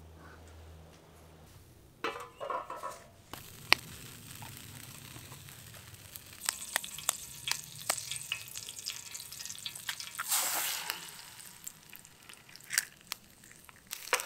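Hot oil sizzling and spitting in a steel frying pan over a campfire as an egg fries. The sizzle sets in a few seconds in, with many sharp pops, and swells louder for a moment about ten seconds in.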